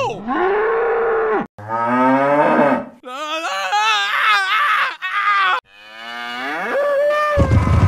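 Cows mooing: four long calls one after another, several sliding up in pitch and then holding, one wavering. A low rumbling noise starts just before the end.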